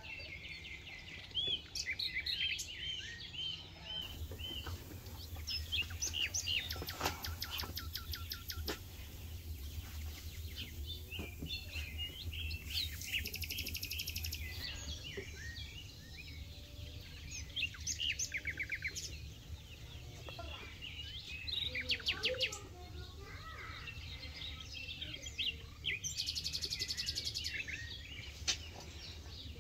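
Songbirds chirping and singing, with several rapid trills now and then, over a steady low hum.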